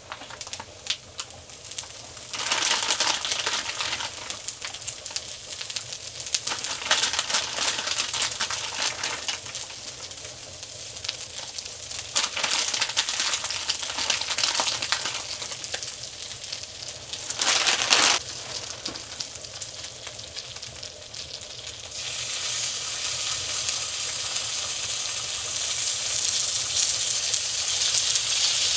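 Pizza frying in a pan on a small woodstove, its sizzle swelling and fading, then steadier and louder about two-thirds of the way through.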